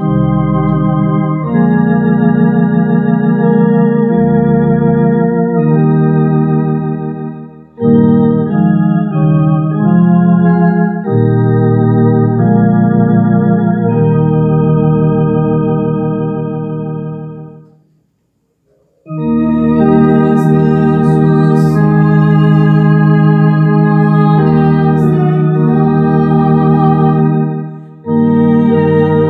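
Two-manual electronic home organ playing a slow hymn in held chords with vibrato over low bass notes. The phrases end in brief breaks, with a pause of about a second about two-thirds of the way through.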